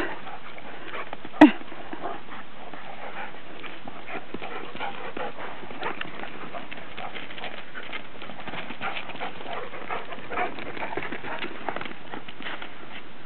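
A standard poodle and a Newfoundland moving about, making a long stream of light, irregular clicks and taps, with one loud sharp sound about a second and a half in.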